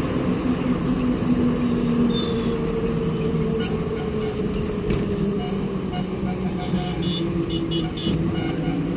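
Bus engine running and road noise, heard from inside the cabin as the bus drives along a highway. The engine note sinks slowly over the first few seconds, then steps up again, with a few short high beeps near the end.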